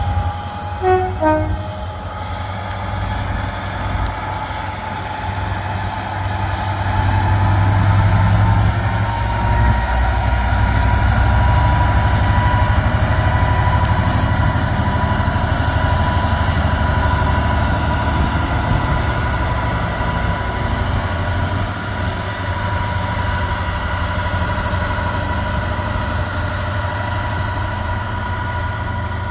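Class 66 diesel freight locomotive, with its two-stroke V12 engine, under full power as it pulls away. It gives a heavy low rumble with a turbocharger whine that rises slightly. The sound is loudest a few seconds in and then eases. A short falling series of tones comes about a second in.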